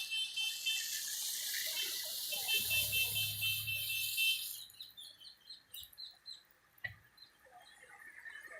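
A loud, high, pulsing insect buzz with a hiss beneath it cuts off about four and a half seconds in. Then short, quick bird chirps repeat, with a single sharp knock about seven seconds in.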